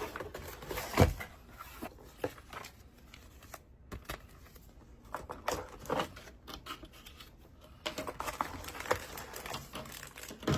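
A mechanical keyboard's packaging being opened and handled: box and wrapping rustling and crinkling, with scattered knocks and scrapes and a louder thump about a second in.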